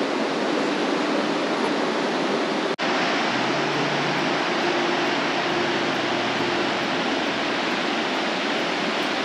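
Rushing water of a mountain waterfall: a loud, steady roar of falling water, with a brief break just under three seconds in.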